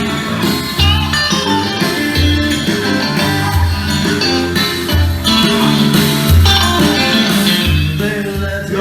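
Music with guitar and a bass line pulsing about once a second, played back from a cassette on a Tascam 122 cassette deck.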